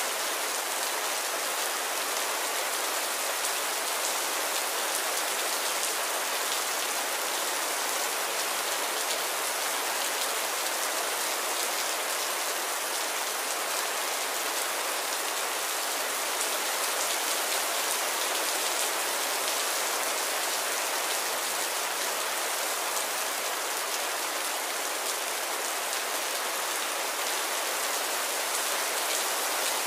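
Heavy rain falling steadily: an even hiss of countless drops with no let-up.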